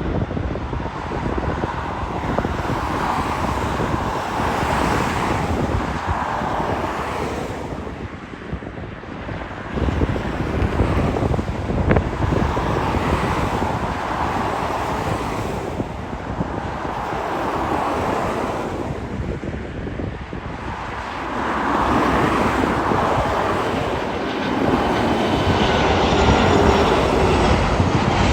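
Engines of a heavy jet airliner at takeoff thrust: a loud rumbling roar that swells and eases, strongest near the end with a faint rising whine.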